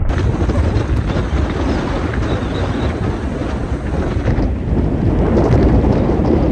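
Wind buffeting the microphone: a loud, steady, low rumble.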